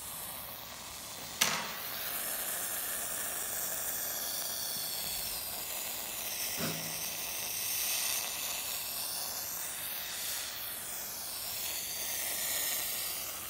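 Sodium metal fizzing steadily on the surface of water as it reacts, giving off hydrogen gas. A sharp click about one and a half seconds in, and a fainter one about six and a half seconds in.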